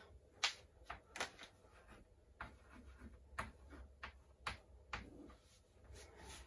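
Chalk tapping on a chalkboard as numbers are written: faint, sharp taps at an uneven pace.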